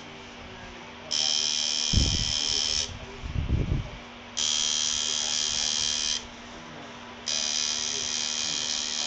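Tattoo machine buzzing in three bursts of about two seconds each, stopping for a second or so between them. A few low thumps come in the first gap, about two to four seconds in.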